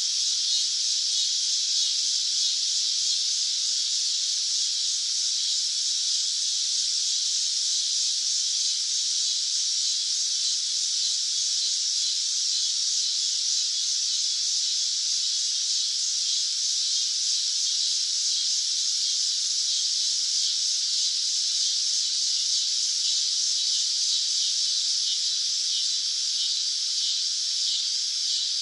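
Cicadas buzzing in a continuous high-pitched drone that holds steady without a break.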